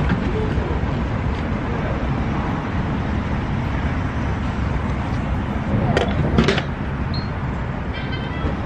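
Gas pump running as fuel flows into a car, over a steady rumble of traffic. Two sharp clicks come about six seconds in, and a few short high beeps near the end.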